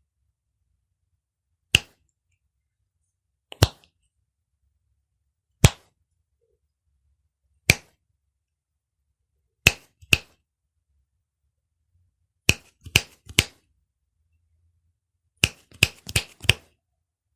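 Fingers snapping: crisp single snaps about every two seconds, then a pair, then three in quick succession, and near the end a fast run of four or five snaps.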